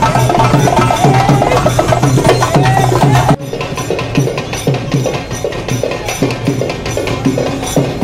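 Loud procession music: drums beating under a wavering melody. About three and a half seconds in it cuts off suddenly, and quieter, steady drum beats take over.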